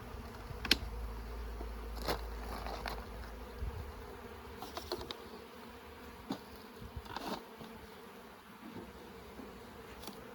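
Honeybees buzzing steadily around an opened hive, with a few sharp clicks and scrapes from the wooden hive boxes and frames being handled.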